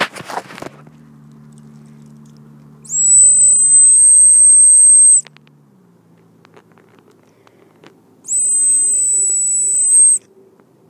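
Dog whistle blown twice, each blast a steady, high-pitched whistle lasting about two seconds, with a few seconds' pause between them.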